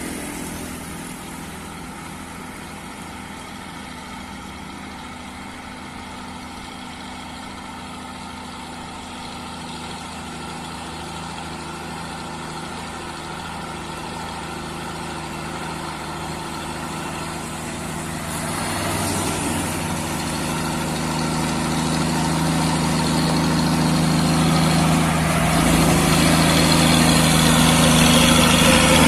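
Heavy truck's diesel engine pulling up a hill at steady revs, growing steadily louder as it draws near.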